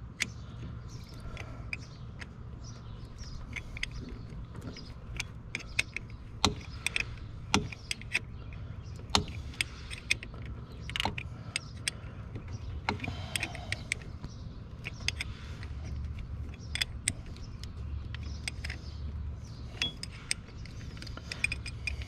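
Small 7/16 wrench clicking and scraping against the bolt of a corroded battery cable terminal clamp: irregular sharp metallic clicks and ticks, as a poor battery connection that kept the van from starting is tightened. A steady low hum runs underneath.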